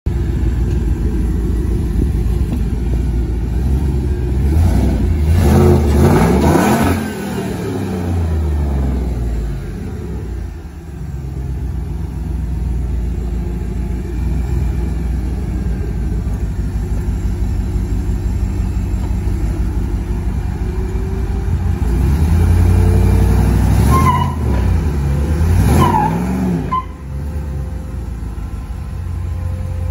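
Swapped Gen V 5.3-litre LS V8 in a Jeep Wrangler idling and being revved: it climbs hard and falls back a few seconds in, then is revved twice more near the end. The engine is freshly installed and being run in.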